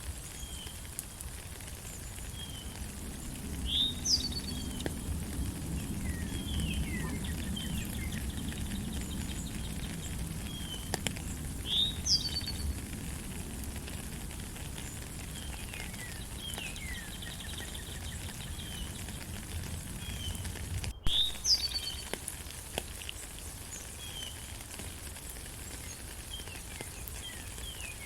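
Steady rain falling in a forest while birds sing: many short chirps, with a louder upward-sweeping call about every eight seconds. The sound cuts out for an instant about three-quarters of the way through.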